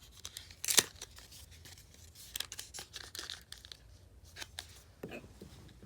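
Nail polish strip packaging being peeled and crinkled by hand: irregular sharp crackles and short tearing sounds, the loudest about a second in.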